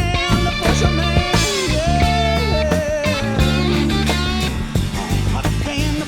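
Rock band recording playing an instrumental passage: a lead guitar line with bent notes over steady bass and drums.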